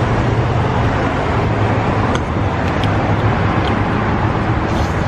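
Steady road traffic noise with the low hum of a vehicle engine running close by.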